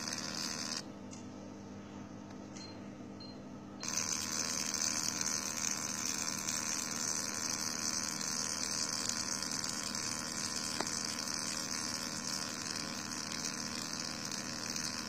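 Fractional CO2 laser machine running during a skin treatment: a steady hiss over a low hum. The hiss cuts out for about three seconds near the start, then comes back.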